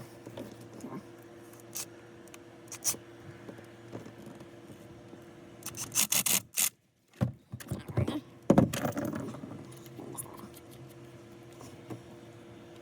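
Hand work on water hose and fittings: scraping and rubbing with scattered sharp clicks, and louder clattering bursts a little past the middle. A steady low hum runs underneath.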